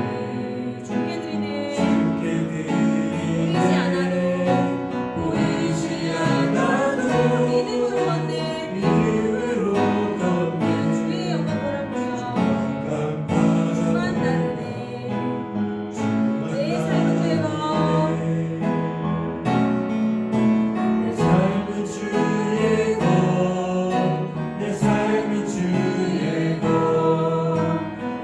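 A worship song sung by a group of voices with keyboard accompaniment.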